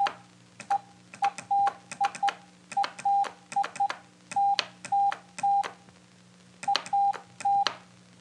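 Morse code: a steady beep keyed on and off in dots and dashes, with a sharp click as each one starts and stops. It spells out the "ELLO W" of "HELLO WORLD".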